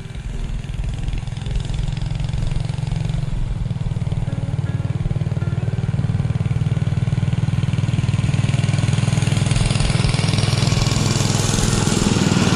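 Motor-dog (small tracked snow tug) engine running steadily as it pulls a seat-sled over the snow, growing louder as it approaches and passes close by, with a rising hiss near the end.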